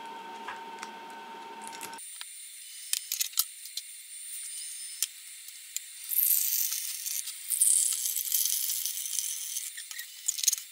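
Small sharp clicks and light crackling of eggshell as a toddler picks the shell off a hard-boiled egg, with a denser stretch of crackling about six seconds in.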